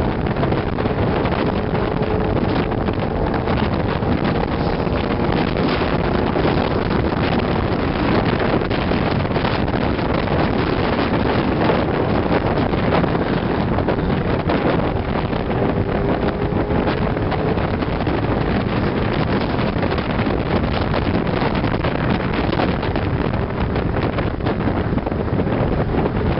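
Steady wind and road noise from a car driving at speed, with wind rushing over the microphone. A faint engine note rises briefly in pitch about two-thirds of the way in.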